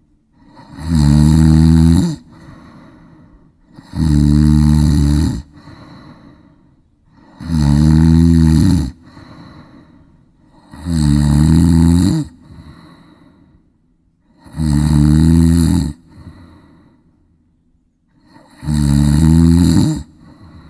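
Loud snoring in a slow, regular rhythm: six long snores with a rough, wavering pitch, about one every three and a half seconds, with quieter breathy breaths between them.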